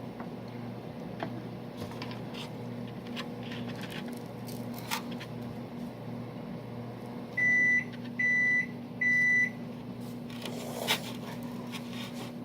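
Microwave oven running with a steady hum, then three high beeps about seven seconds in, the signal that the heating cycle has finished. A few light clicks and knocks sound in between.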